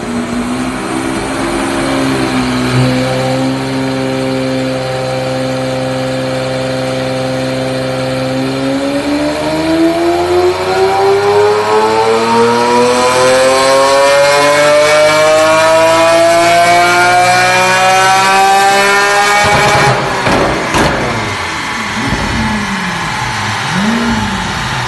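Lamborghini Aventador V12 with a titanium valved exhaust running on a chassis dyno. It holds steady revs for about eight seconds, then makes a long full-throttle pull with the pitch climbing steadily for about ten seconds. The throttle cuts off sharply and the revs fall away, with a few short rises and falls in pitch.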